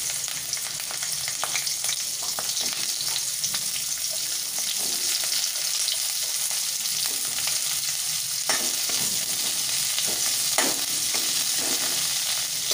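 Cauliflower florets and potato cubes sizzling steadily as they fry in hot mustard oil in a metal kadai, with a spoon scraping and clicking against the pan now and then as they are stirred.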